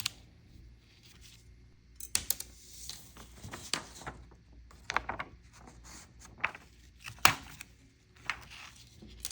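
An 8mm handheld hole punch clicking as it cuts eyes out of a paper eye sheet, with paper rustling: a string of faint, irregular sharp clicks.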